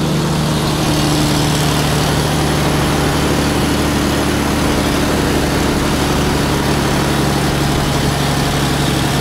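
Heavy diesel vehicle engine running at a steady, even speed, with no revving.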